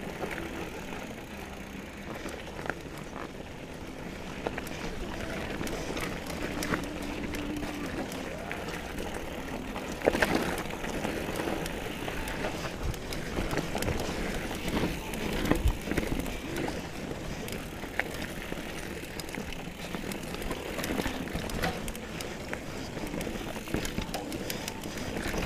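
Trek Remedy 7 full-suspension mountain bike ridden along a dirt trail: steady tyre and rolling noise with many small rattles and clicks from the bike over rough ground. A sharp jolt about ten seconds in, and several more hard knocks a few seconds later as it hits bumps.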